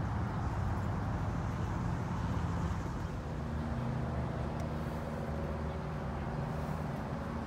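Steady low rumble of road traffic, with a steady engine hum joining about three seconds in.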